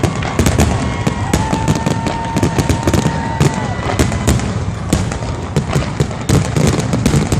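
Fireworks finale barrage: rapid, overlapping bangs and crackles with no let-up. A steady high whistle, rising at its start, is held for about two seconds beginning about a second in.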